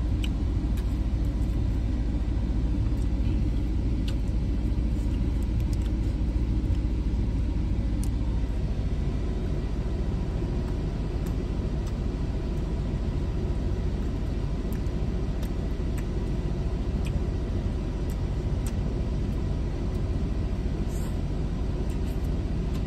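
Steady low rumble of a car, heard from inside the cabin, with a few faint clicks.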